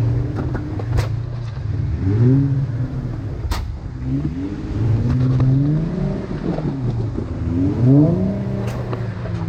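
A Jeep engine revving up and easing off again and again, the way a Jeep works its way over a rocky off-road obstacle. A few sharp knocks are heard along the way.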